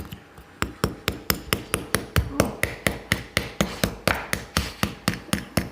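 Small dig-kit hammer rapidly tapping a chisel into a soft, chalky plaster block, about four to five strikes a second, to chip a gemstone out.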